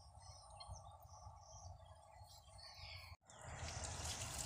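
Birds chirping, faint, for the first three seconds. After a sudden break about three seconds in, a steady hiss of water being poured from a plastic jug onto the soil around a freshly planted aloe vera.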